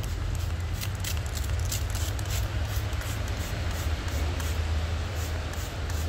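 A young parakeet flapping its wings, giving a quick run of short whooshing flutters a few times a second, over a steady low rumble of wind on the microphone.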